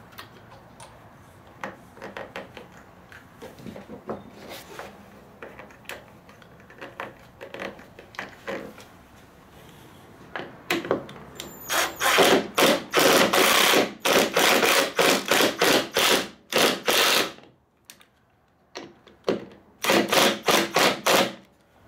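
Cordless drill/driver running in a rapid string of loud short pulses as it drives the Torx bolts through the grab-handle bracket. Quiet handling clicks come first, then about six seconds of driving, a brief pause, and a second short run near the end.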